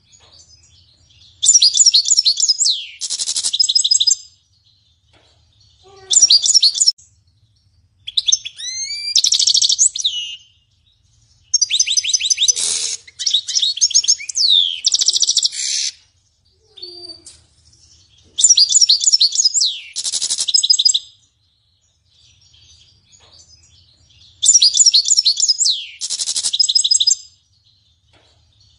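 European goldfinch singing strongly: loud phrases of fast twittering trills, buzzy rattles and quick falling notes, each a few seconds long, with pauses of a second or two between them.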